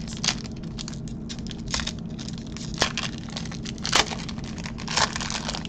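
Foil Pokémon booster pack wrapper crinkling and tearing as it is peeled open by hand, with sharp crackles about once a second, the loudest about four seconds in.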